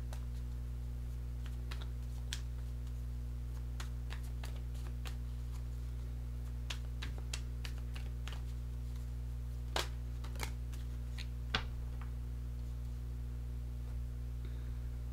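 Tarot deck being shuffled by hand: scattered soft clicks and taps of the cards, with a few sharper ones a little past the middle. A steady low hum runs underneath.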